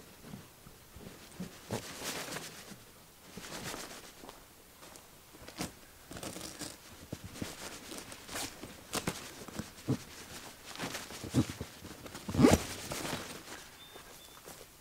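Footsteps on a dry pine-needle forest floor and rustling of nylon tent fabric while a tipi tent is pitched by hand: a run of irregular crunches and scuffs, with one louder thud near the end.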